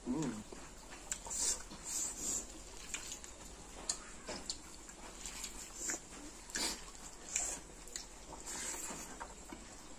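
Two people eating rice and chicken curry by hand in a mukbang: wet chewing and lip-smacking in short, irregular smacks.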